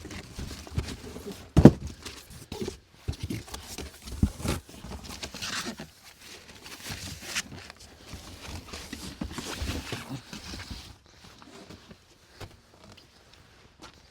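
Irregular thuds, knocks and scuffing from hands-on work on a car's wheels, with the heaviest thud about a second and a half in; it quietens near the end.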